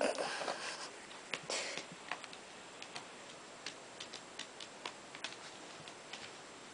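Month-old puppies scuffling in play on carpet: irregular small clicks and ticks, with brief scratchy rustling bursts in the first two seconds.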